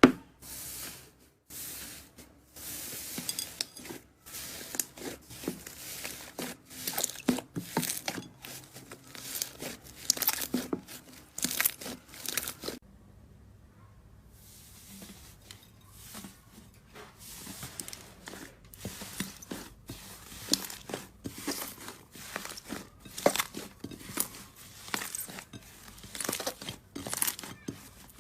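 Slime being squeezed, stretched and poked by hand, giving dense, irregular crackling and popping, with a quieter pause about halfway through.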